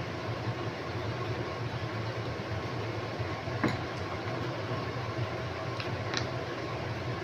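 Steady background hum, with a drinking glass set down on a table with a sharp knock about three and a half seconds in, followed by a couple of faint clicks.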